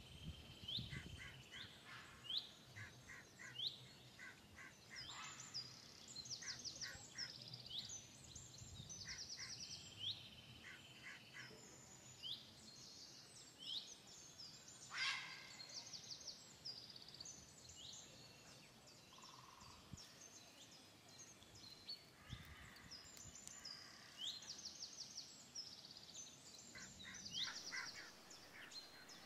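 Small birds chirping and calling: many quick rising chirps and short rapid trilled phrases repeating over and over, with one sharp knock about halfway through.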